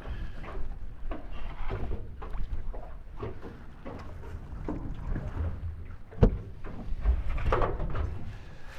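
Knocks and clatter of handling aboard a small fishing boat over a steady low wind-and-water rumble, with one sharp knock about six seconds in.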